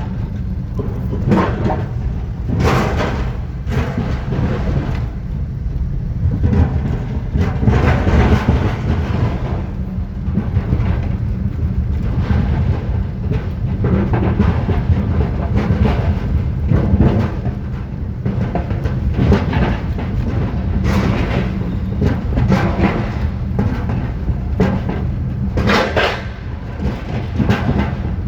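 Heavy, steady low rumble of a moving vehicle, with clattering knocks every second or two.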